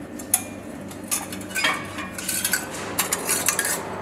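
Tie wire and the stainless-steel frame of a checkweigher's weighing section clinking and scraping as the wire is untied by hand. It is an irregular run of light metallic clicks and rattles, some with a short ring, busiest in the second half.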